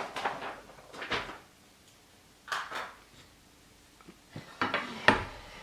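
Handling noises as a stitched cross-stitch piece is turned over: a few short bumps and rustles, the loudest near the end.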